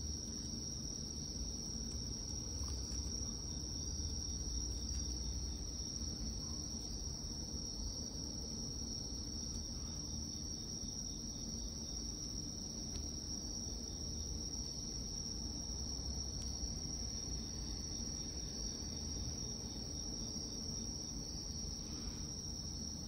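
Crickets chirping steadily in a continuous high-pitched chorus over a low background rumble.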